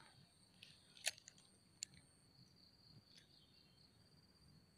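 Near silence: quiet outdoor ambience with a faint steady high tone and a few soft clicks, the clearest about a second in and near two seconds.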